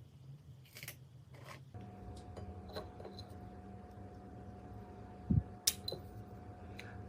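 Microwave oven: a couple of clicks, then about two seconds in it starts running with a steady electrical hum. A short thump and a few clicks come about two-thirds of the way through.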